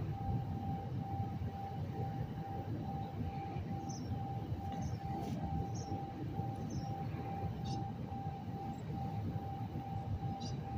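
A steady high-pitched tone pulsing rapidly and evenly, over a constant low outdoor rumble; the uploader takes the tone for a cell tower base station beeping normally.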